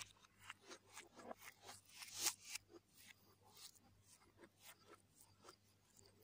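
Close-up eating sounds: crunching and chewing of food with soft mouth clicks, in a scatter of short crackles that are loudest a little past two seconds in.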